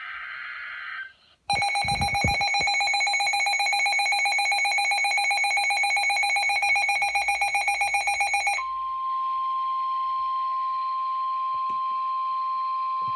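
Emergency Alert System signal for a severe thunderstorm warning. It opens with the end of a SAME header data burst. After a brief gap comes the two-tone EAS attention signal for about seven seconds, and then a single steady NOAA Weather Radio alert tone.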